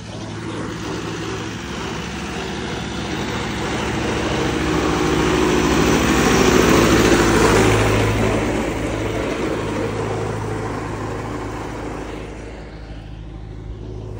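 Tractor engine running steadily as it pulls a laser land leveller through the soil, growing louder to a peak about seven seconds in as it passes close, then fading.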